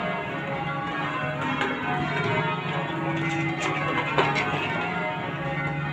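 Change ringing on a heavy ring of ten Simpson-tuned church bells with a 28 cwt tenor in C#: the bells strike one after another, their tones ringing on and overlapping.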